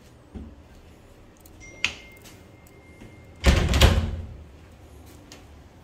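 Closet door pushed shut: a light click near two seconds, then a loud dull knock and rattle lasting about half a second, about three and a half seconds in.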